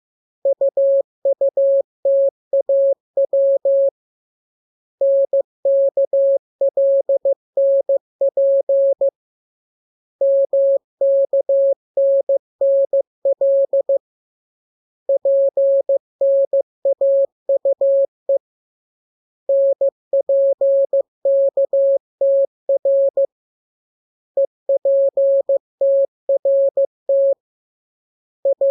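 Morse code (CW) as a single steady tone near 600 Hz, keyed on and off in dots and dashes. It comes in six groups of characters, each lasting three to four seconds and separated by pauses of about a second, with a seventh group starting at the very end. This is a code-practice radiogram of random letter groups for learning to copy by ear.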